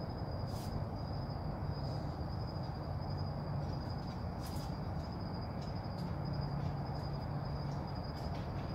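Crickets trilling steadily over a low steady hum, with a few faint clicks.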